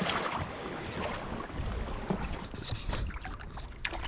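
Wind buffeting the microphone over water lapping and splashing against a kayak's hull, with a few small knocks and clicks in the second half.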